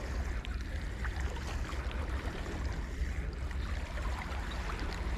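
Sea water lapping and washing against the rocks of a breakwater, over a steady low rumble.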